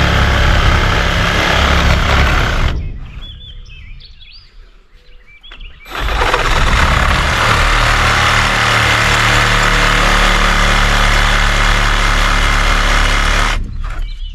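Cordless reciprocating saw cutting through a wooden railing post, freehand. It runs for about three seconds, stops for about three, then cuts again steadily for about seven and a half seconds before stopping near the end.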